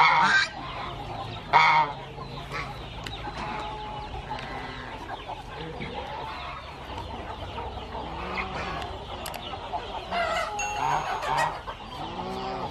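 Chickens clucking continuously, with two loud, short calls in the first two seconds and a louder stretch of clucking near the end.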